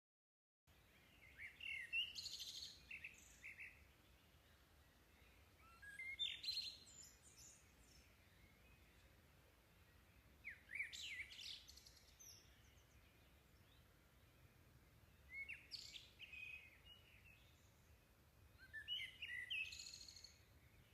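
A songbird singing a short phrase of quick, varied chirping notes five times, about once every four to five seconds, over a faint low background rumble. The sound starts just under a second in.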